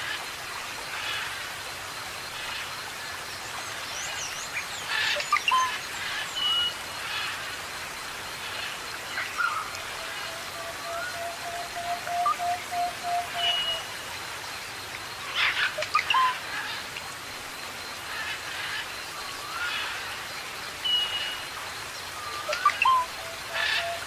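Tropical forest ambience: a steady hiss of falling water under a chorus of birds. The calls include a low level whistle held for about three seconds (twice), brief high whistles, quick upturned chirps and a couple of busier flurries of calls.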